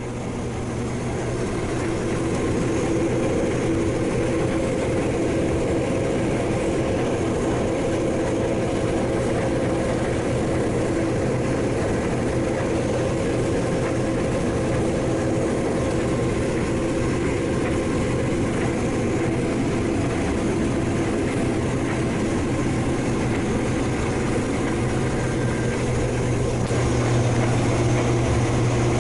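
Heavy diesel farm machinery running steadily with a deep, even drone. It fades up over the first couple of seconds.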